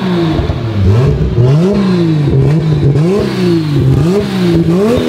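Toyota Supra MK4's single-turbo 2JZ straight-six being revved up and down, about four throttle blips in a row, each climbing and dropping back.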